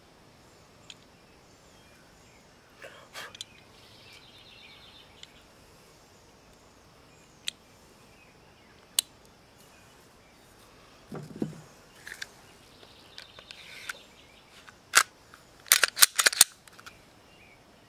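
Scattered sharp clicks and clacks from a Glock 19 pistol being handled, with a quick run of louder clacks near the end.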